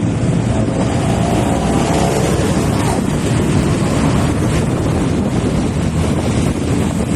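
Wind rushing over the microphone of a moving motorcycle, with the engine running underneath as a steady loud rumble.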